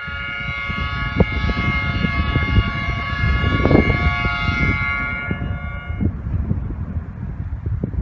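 Diesel locomotive horn sounding one long blast, a chord of steady notes that cuts off about five to six seconds in. Wind rumbles on the microphone throughout.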